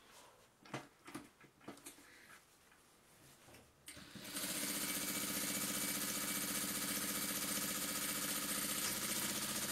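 Industrial straight-stitch sewing machine starting about four seconds in and then running steadily at full speed, sewing through padded fleece. Before it starts there are a few soft clicks and rustles as the fabric is positioned under the needle.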